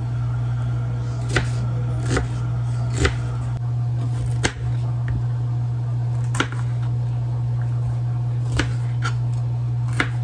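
Kitchen knife cutting onions and green bell peppers on a plastic cutting board: about eight separate, irregularly spaced knocks of the blade against the board, over a steady low hum.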